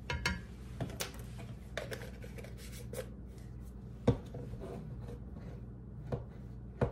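Kitchen handling sounds: light taps, clicks and rubbing as spice jars and a plastic measuring spoon are picked up and set down on the counter, with a sharper knock about four seconds in, over a steady low hum.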